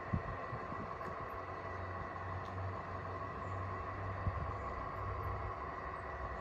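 Steady electric motor hum with a high whine. Wind rumbles and thumps on the microphone at the same time.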